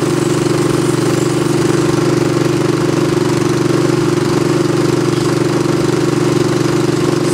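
Gas-engine air compressor running steadily just after a cold start. Its pump runs against no back pressure, with the aftercooler's cold-start valve and the tank drains open.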